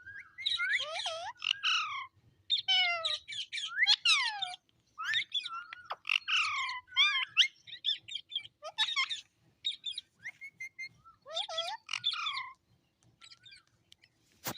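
Pet parrot squawking and chattering: a rapid run of short whistled calls and squawks that glide up and down in pitch, with brief pauses between them.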